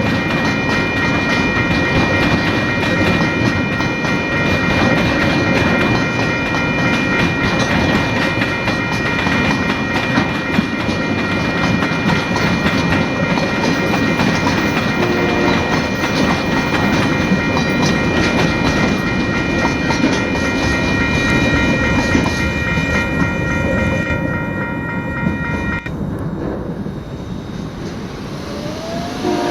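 TasRail freight train rolling past, its wagons clattering over the rails in a steady rumble. Several high steady ringing tones run over it and cut off suddenly about 26 seconds in, after which the rumble eases.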